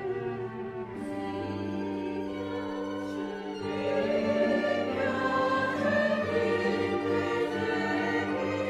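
Mixed choir of men's and women's voices singing a sacred Christmas piece with instrumental accompaniment, in long held chords that swell louder about three and a half seconds in.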